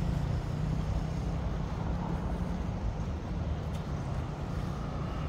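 Steady low rumble of distant city traffic, with a faint hum in the first couple of seconds.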